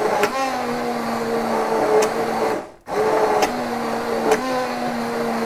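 Handheld immersion blender motor running in a steel pot, puréeing boiled chicken, broth and egg, its pitch shifting a little as the load changes. It cuts out briefly a little under three seconds in, then starts again.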